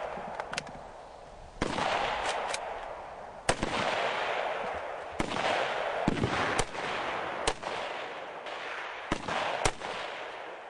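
Gunshots fired one at a time at irregular intervals, about ten in all. Several are followed by a long rolling echo.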